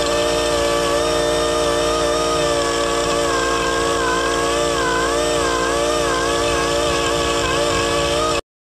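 Die grinder with a carbide burr running at a steady high whine while porting a Predator 420cc Hemi cylinder head. From about two and a half seconds in, its pitch keeps dipping and recovering as the burr is loaded against the metal. The sound cuts off suddenly near the end.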